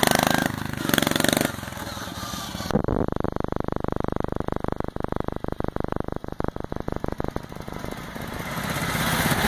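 Small engine of a homemade off-road riding-mower kart running hard. It is loud and close at first, then its separate firing pulses are heard as it runs farther off, and it grows louder again near the end as it comes back.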